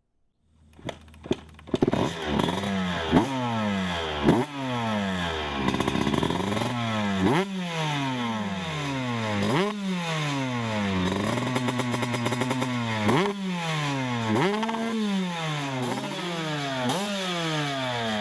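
Dirt bike engine sputtering into life in the first two seconds, then revved in repeated throttle blips, the pitch jumping up sharply and falling back each time, about once every one to two seconds.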